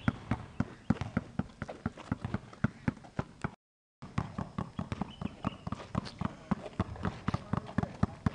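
Two basketballs dribbled together on an asphalt court: a fast, steady run of bounces, about four a second. The sound cuts out completely for a moment about three and a half seconds in, then the bouncing carries on.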